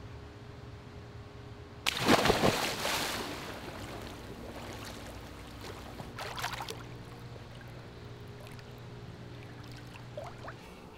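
A person jumping into a swimming pool: one big splash about two seconds in that falls away over a second or so, then water churning and a smaller splash around six seconds in, over a steady low hum.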